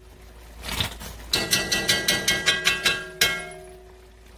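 A metal tablespoon tapped quickly against the rim of an enamelled cast-iron pot to knock tomato sauce off it: about a dozen ringing taps in under two seconds, ending in one louder tap.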